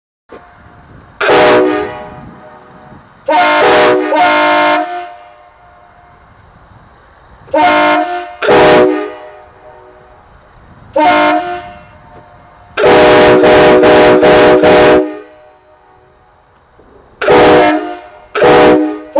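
Nathan K5LA five-chime air train horn on a Ford F-350 blown in a series of about eight loud blasts of a multi-note chord. Most blasts are short and one is held about two seconds; each blast slurs up in pitch briefly as it sounds and then dies away.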